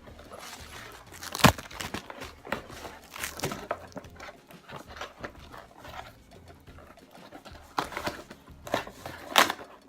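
A parcel's packaging being torn and crinkled open by hand: irregular rustling with scattered sharp crackles, the loudest about a second and a half in and several more near the end.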